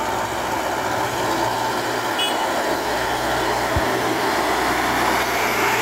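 A dump truck's diesel engine running steadily under load as it climbs a steep hill, over a constant wash of road noise.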